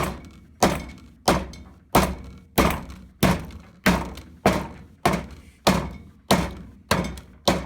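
An iPhone 5s being struck over and over, a steady series of heavy thunks about three every two seconds, each dying away quickly.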